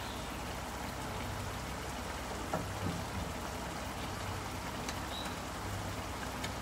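Beef sizzling steadily in a hot wok as broccoli is tipped in, with a few light clicks and a steady low hum underneath.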